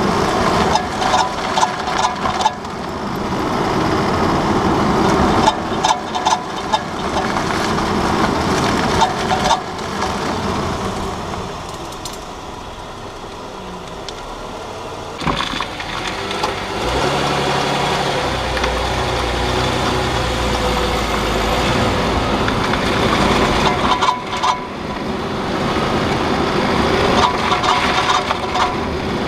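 2009 Nissan Murano moving at low speed, with bursts of rattling and clicking from the front left wheel area that come and go several times over a steady vehicle rumble. The owner says the rattle comes only on hard right turns at low speed and suspects the splash guard (dust shield) between the steering knuckle and wheel hub.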